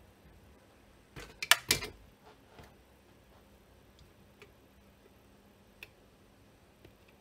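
A quick cluster of sharp clicks and taps about a second in, then a few faint single ticks: a soldering iron tip working against a circuit board while desoldering the remains of a blown fuse.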